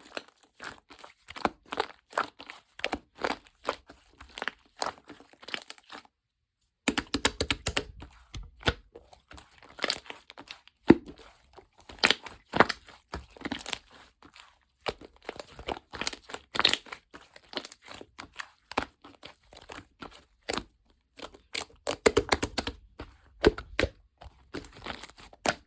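Slime being squished, poked and stretched by hand, giving dense, irregular crackling and popping clicks, with a short pause about six seconds in.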